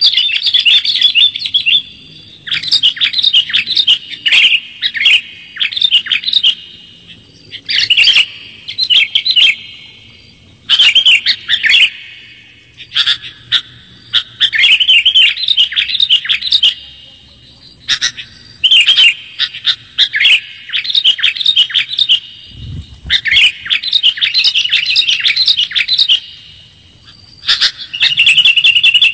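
Sooty-headed bulbul (kutilang) song played as a lure call: bubbly phrases of quick chirping notes in repeated bursts of a second or two, with short pauses between them. A brief low thump comes about two-thirds of the way through.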